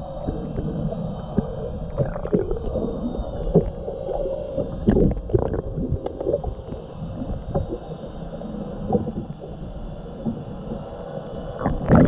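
Sounds aboard a small fishing boat on the water: a steady low rumble with a faint steady hum, and scattered knocks and clatter, with a few louder ones around the middle and just before the end.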